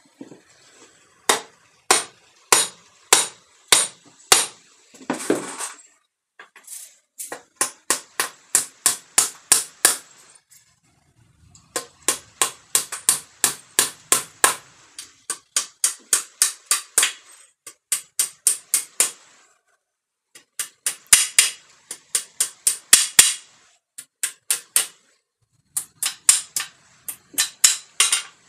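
Hand hammer striking as a broom head is fixed onto its handle: runs of sharp blows, a few a second, broken by short pauses.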